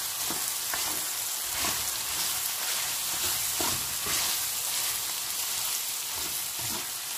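Chicken hearts and gizzards with minced onion sizzling as they fry on high heat in a pan, with the pieces scraped and turned now and then.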